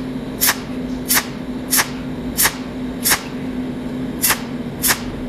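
Cold welding machine firing its spark discharges as sharp, regular cracks about every two-thirds of a second, over a steady electrical hum.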